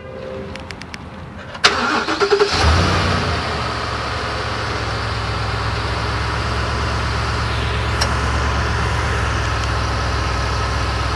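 Ford Super Duty pickup's engine starting about two seconds in: a sharp click, a short crank that catches with a brief flare, then steady idling.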